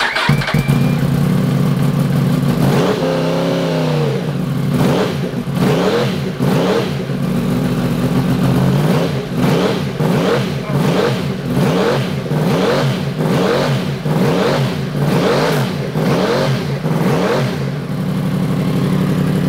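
Yamaha YZF-R1's freshly rebuilt crossplane inline-four race engine, heard through a Hindle exhaust, fires up and idles. From about three seconds in it is blipped on the throttle over and over, more than once a second, then settles back to idle near the end. This is the rebuilt engine's first run, getting oil circulating and warming up.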